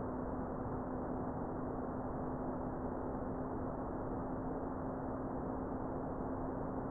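Thuraya 2 satellite's C-band beacon carrier, received on a Pluto SDR and demodulated in upper sideband: a steady low tone that creeps slightly up in pitch, over even receiver hiss that is cut off above the treble.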